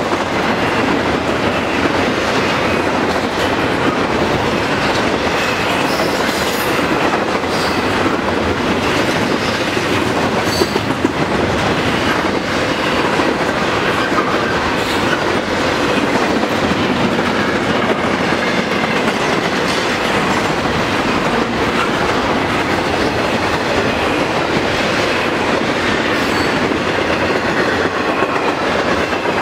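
Double-stack intermodal well cars rolling past at speed: a steady, loud rumble and clatter of steel wheels on the rails, with a few sharper clacks about ten seconds in.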